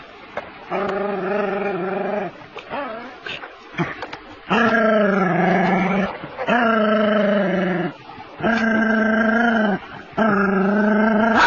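A dog growling in long, pitched growls, about five of them, each a second or two long with short breaks between. It is the aggressive growling of a dog fighting a large snake.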